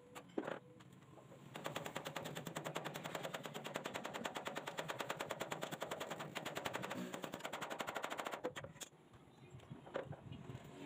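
A handheld power tool working on a steel frame with a rapid, even rattle, starting about a second and a half in and stopping after about seven seconds, with a few single clicks of metal around it.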